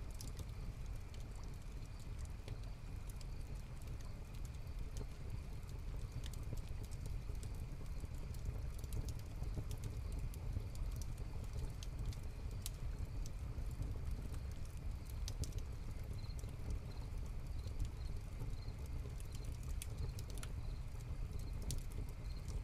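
Hearth-fire ambience: wood fire crackling with scattered sharp pops over a low steady rumble. Crickets sing in the background, with a faint regular chirp coming in about two-thirds of the way through.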